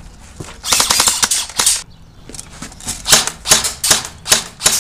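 ICS SIG 551 airsoft electric gun (AEG) firing on full auto: a rapid burst of about a second, then several shorter bursts about half a second apart.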